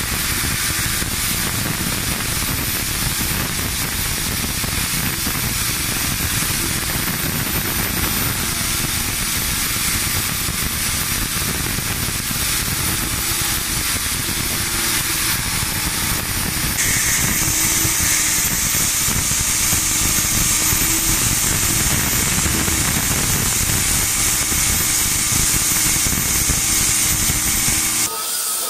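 UDM-2216 three-axis CNC machining center milling a steel mold, with steady spindle and cutting noise. A high hissing joins about two-thirds of the way through and stops abruptly near the end.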